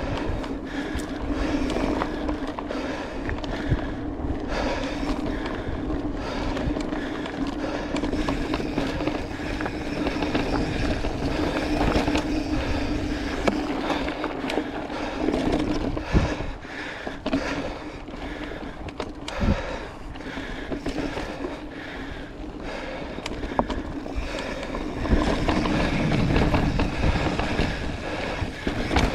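Mountain bike riding a dry dirt singletrack: tyres rolling and crunching over dirt and rocks with a steady hum, and the bike knocking and rattling over bumps now and then.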